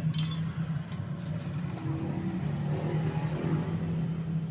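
A steady low engine-like hum, with a short sharp metallic clink of hand tools about a quarter second in as the speed-sensor wires are handled for splicing.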